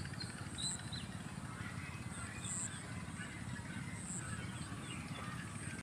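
Faint outdoor ambience: light wind rumbling on the microphone, with a few short, high bird chirps.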